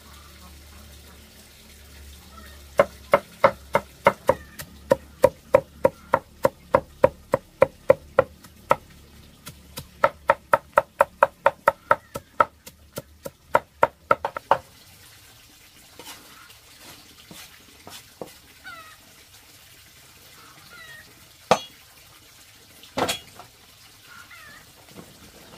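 Steady rhythmic knocking, about three to four strokes a second, lasting some twelve seconds, then faint high chirping calls and two single knocks near the end.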